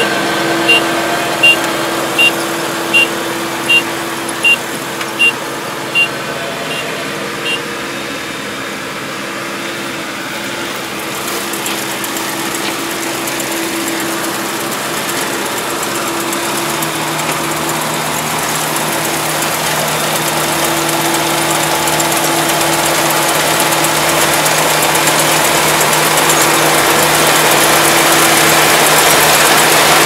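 Iseki Japan 4075 combine harvester running as it cuts rice, with a steady hum and growing steadily louder as it comes closer. Over the first seven seconds or so a high beep repeats about nine times, a little over once a second, then stops.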